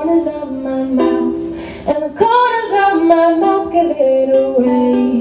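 Ukulele music, a plucked tune with notes changing every half second or so.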